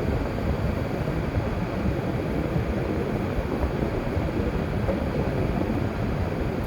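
Steady road and tyre noise of a car driving, heard inside the cabin.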